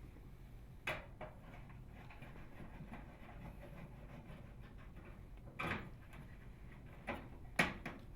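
Faint, scattered clicks and knocks of a Phillips screwdriver working the screws that hold a microwave oven's control panel.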